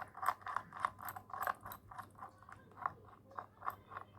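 Small metal parts clicking and rattling, a few light clicks a second, as a bolt with its washer is fitted and turned by hand into the nut on a ceiling fan's downrod clamp.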